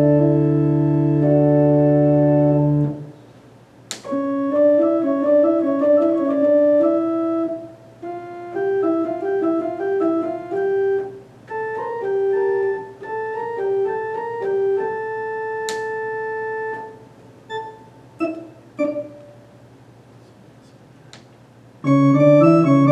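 Baldwin HT2 electronic organ being played: a held chord over a pedal bass note stops about three seconds in. A manual passage of short notes follows without pedal, broken by pauses and a few sharp clicks. A full chord with pedal bass comes back near the end.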